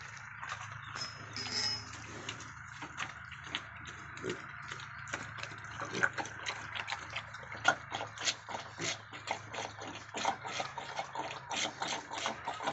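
Piglets moving about on a concrete pen floor: a busy run of quick, irregular clicks and scuffs from their trotters, growing thicker about halfway through.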